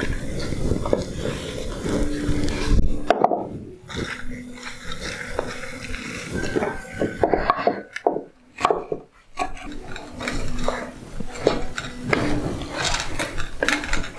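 Irregular knocks and scrapes of a wooden board and a wooden spoon against a clay cooking pot as chopped squash blossoms are tipped in and stirred.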